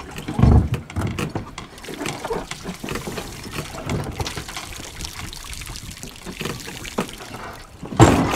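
Rainwater pouring and trickling out of an inflatable dinghy's drain hole into the sea as the dinghy is hauled up on a rope and pulley. Irregular knocks from the boat and rigging run throughout, with a loud thump about half a second in and another near the end.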